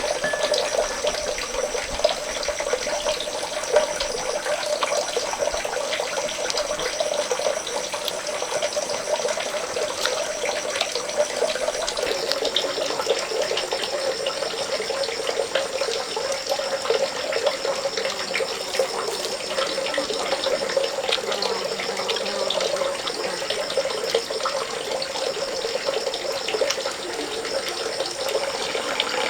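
Steady running water, a continuous pouring flow like water spilling from a pipe or over stones. Its tone shifts slightly about twelve seconds in.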